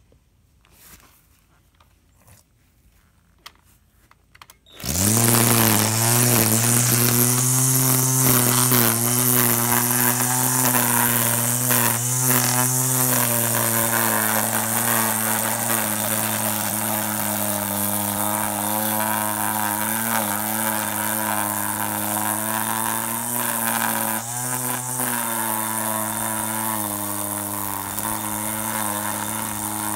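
A few faint clicks, then about five seconds in an electric string trimmer switches on and runs steadily, a motor hum with the hiss of the nylon line cutting grass. Its pitch wavers briefly a couple of times as it bites into the grass.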